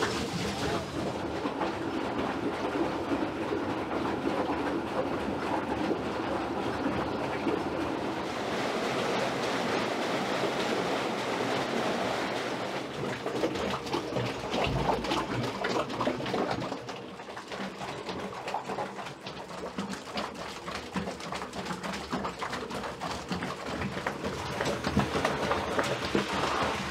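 Concrete plant machinery running with a steady rumble and rattle: a belt conveyor carrying wet concrete mix and a paddle mixer churning it. The sound changes in character partway through and dips in loudness for a few seconds.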